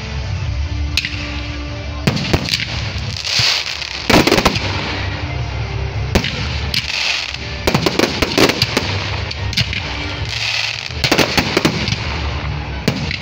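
Fireworks display: aerial shells bursting in a string of sharp bangs, the loudest about four seconds in, with quick runs of cracks from the glittering stars around the eighth and twelfth seconds.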